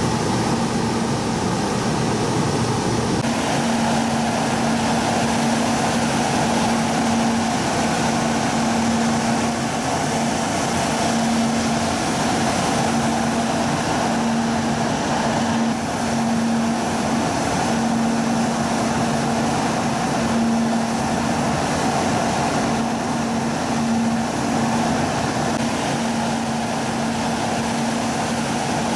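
Steady mechanical hum from a parked Kyushu Shinkansen 800 Series trainset's on-board equipment: a low steady tone that grows stronger and weaker, over an even rushing noise.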